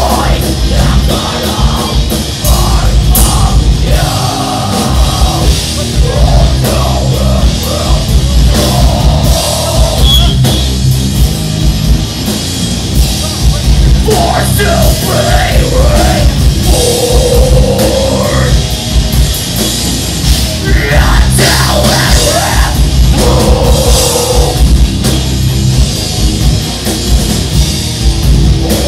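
Heavy metal band playing live and loud: distorted electric guitar and drum kit, with a vocalist's voice coming through at times over the band.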